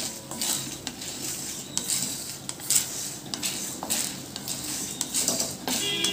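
A spatula scraping and knocking in a pan in repeated stirring strokes, about two a second, as urad dal and dried red chillies are dry-roasted without oil.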